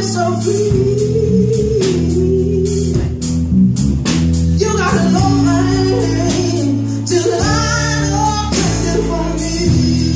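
Live music: a woman singing phrases to acoustic guitar, with electric bass holding low notes underneath.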